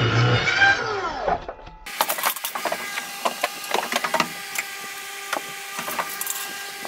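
Electronic background music ends with a falling glide in the first second and a half. Then a series of light wooden knocks and clicks, wooden furring-strip floor joists being handled, over a faint steady hum.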